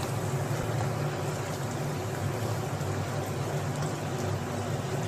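Onions and chopped vegetables frying in a steel pan on a gas stove: a steady sizzle with a low hum beneath it.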